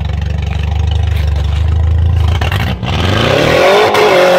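1989 Nissan Axxess minivan's straight-piped four-cylinder engine running with a low, steady rumble, then revving hard about three seconds in, its pitch climbing and holding high.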